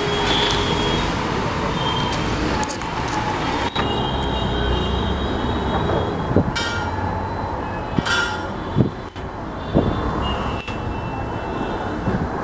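Steady rumble of street traffic and running vehicles, with thin high squeals now and then and a few sharp knocks about halfway through.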